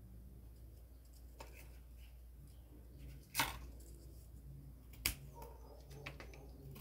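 Scissors snipping through thin cardboard: a few sharp snips, the loudest about three and a half seconds in and another about five seconds in, with fainter cuts between, over a low steady hum.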